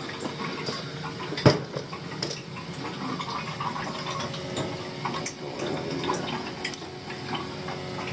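Water gurgling and crackling through a hot-water boiler's piping from air still trapped in the system, over a faint steady hum. A single sharp knock comes about a second and a half in.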